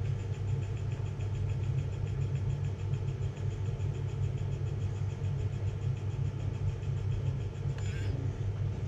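A 3D pen's small feed motor running as it extrudes ABS plastic, with a faint, even, rapid ticking, over a steady low hum that is the loudest sound. A brief click comes near the end.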